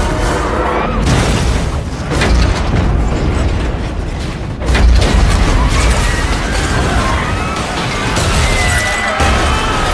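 Film disaster sound mix: deep rumbling booms and crashing for a giant wave and a container ship smashing into a suspension bridge, under a dramatic music score. A heavy impact hits suddenly about five seconds in.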